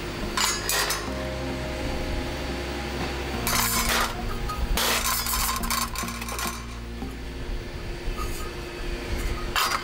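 Background music, with several bursts of metallic clinking and scraping as stainless steel sparkler filter plates and a hub are handled, sped up to triple speed.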